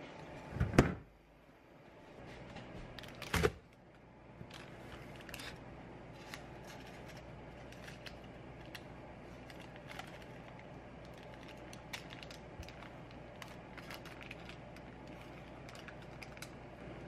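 Two sharp knocks of a metal baking tray against the counter, a few seconds apart, then parchment paper crinkling and rustling as it is laid over a baked sponge cake sheet and peeled off.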